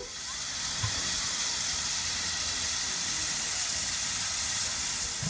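Stationary K-class steam locomotive K 153 letting off steam: a steady hiss with no chuffing.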